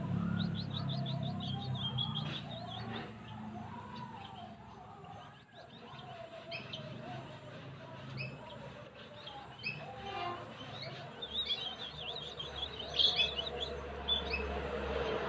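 Munias chirping: many short, high chirps scattered throughout, coming thickest near the end, over a faint low background hum.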